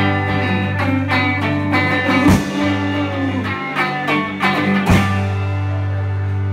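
Live band with guitars playing a closing phrase: picked notes and strums with two sharp hits, then a final chord held and ringing out from about five seconds in.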